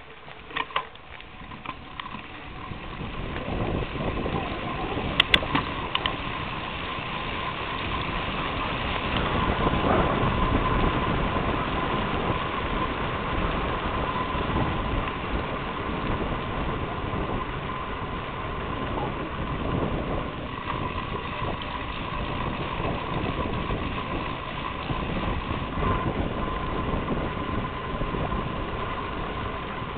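Steady rumble of movement along a tarmac path, wind and wheels, growing over the first ten seconds and then holding, with a faint steady whine throughout. A couple of sharp clicks about five seconds in.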